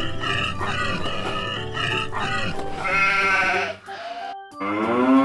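Sheep bleating sound effects over light background music, one long wavering bleat about three seconds in, then a cow starting to moo near the end.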